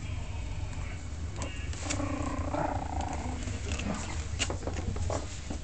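Pomeranian-cross-Yorkie puppies scuffling about on a blanket and newspaper, with scattered small clicks and rustles. About two seconds in comes a short pitched puppy vocal sound lasting about a second. A steady low rumble runs underneath.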